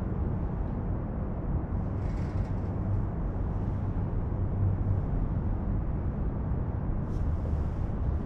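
Steady low outdoor background rumble, with a couple of faint brief rustles about two seconds in and near the end.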